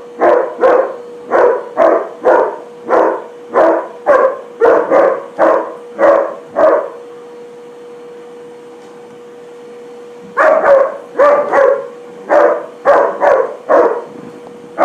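A dog barking rapidly and repeatedly at a vacuum cleaner hose, about two or three barks a second. The barking stops for a few seconds in the middle, then starts again. A steady hum runs underneath.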